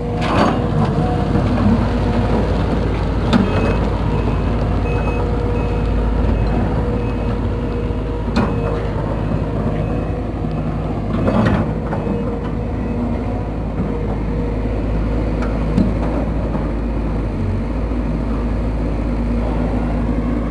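Case CX210B excavator's diesel engine and rebuilt main hydraulic pump running steadily under work during a test run, with a few sharp knocks. The pump runs smoothly, without the dog-like howl and growl of its earlier fault.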